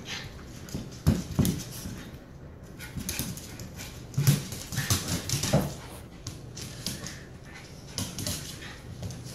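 Three dogs play-fighting: short dog vocal noises at irregular intervals, loudest about a second in and again around four to six seconds in, with scuffling and claws clicking on a hardwood floor.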